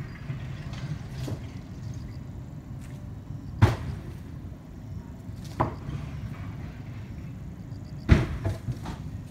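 A steady low rumble with a few sharp knocks, about three and a half, five and a half and eight seconds in, the last the loudest.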